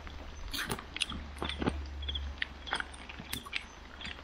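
Metal fork clicking and scraping against grilled clam shells on a paper plate, in a run of short, irregular clicks.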